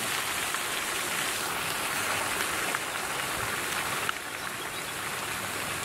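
Pond water fountain splashing steadily.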